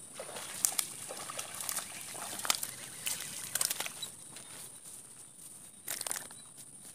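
Irregular small splashes and trickling water with scattered clicks and crackles, and a stronger cluster of them near the end: a hooked snakehead (haruan) being fought in shallow, weedy water.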